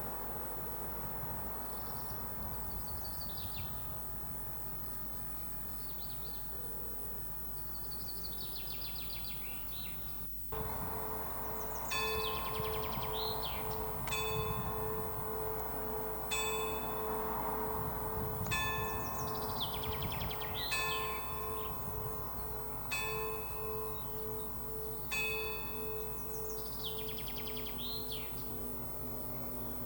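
Birds singing for about ten seconds, then a church bell tolling, one strike roughly every two seconds, its hum ringing on between strikes.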